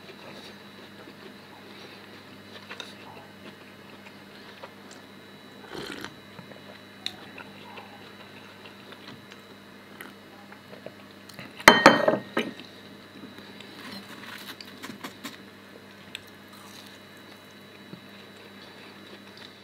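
Porcelain teacup set down onto its saucer, a sharp ringing clink about twelve seconds in. Quieter scattered clicks of china and a person chewing fried pastry come before and after it.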